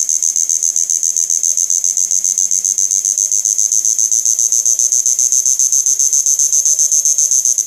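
Electric fish-shocking inverter machine running under load, driving its output into a thin wire that glows red-hot: a loud, high-pitched whine pulsing fast and evenly, with fainter lower tones slowly rising beneath it. It cuts off suddenly at the very end.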